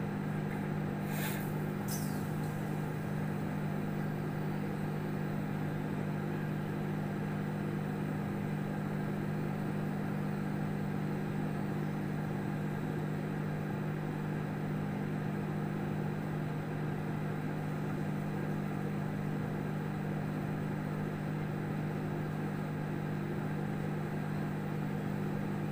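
Samsung microwave oven running with a steady low hum. Two brief ticks sound about a second in.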